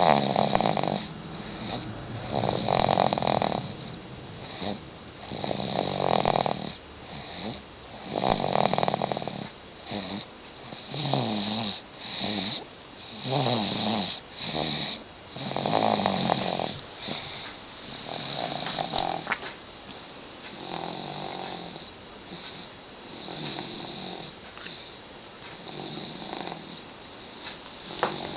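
A 9-month-old baby snoring in sleep, one snore with each breath every two to three seconds. The snores are louder in the first half and grow softer toward the end.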